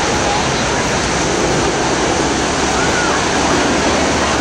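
Steady, loud rushing noise, even and without any beat.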